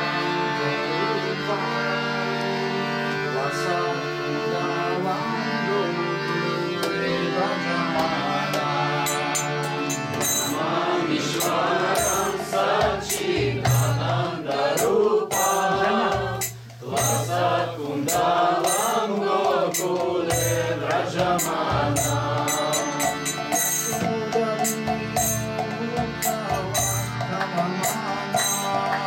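Devotional kirtan chant for Kartika: a harmonium plays sustained chords alone for about the first ten seconds, then group singing joins with a mridanga drum beating a steady rhythm and small brass hand cymbals (karatalas).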